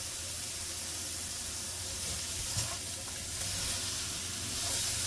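Julienned carrots sizzling as they stir-fry in an oiled nonstick pan, with a metal turner stirring through them; a light tap about two and a half seconds in.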